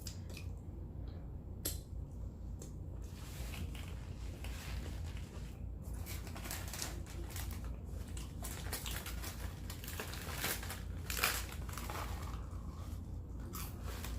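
Close-miked chewing of crunchy food, a few scattered crunches at first, then steady, dense crunching from about three seconds in.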